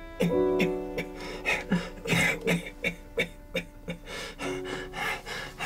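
Hand-cranked paper-strip music box playing a slow melody: plucked metal notes that ring on, each struck with a sharp click as the punched strip feeds through.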